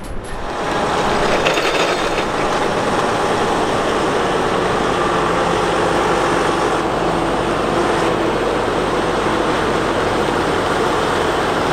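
Semi truck's diesel engine running as it pulls an empty heavy-haul lowboy trailer away, a loud steady drone that comes up about half a second in.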